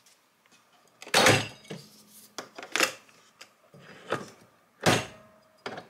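Hard plastic clacks and knocks from handling a KANU Barista capsule coffee machine, its lid lifted and the capsule slot worked. There are a handful of separate strokes, the loudest about a second in and another sharp one near the end.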